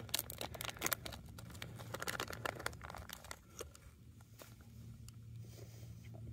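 Crinkling and tearing of a snack package of beef bites being opened: a quick run of crackles for about the first three seconds, then quieter handling.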